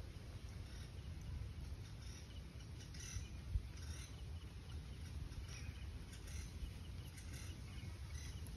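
Faint outdoor background: a low, uneven rumble with scattered faint bird chirps.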